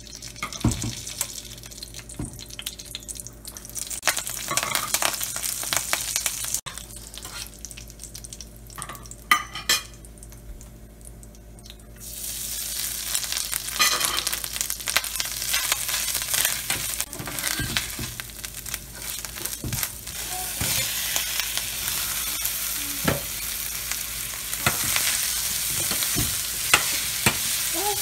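Hot oil sizzling and spattering in a stainless steel pan as dried red chillies fry, with a much louder sizzle from about halfway once curry leaves and grated coconut go in. A metal spoon clicks and scrapes against the pan while stirring.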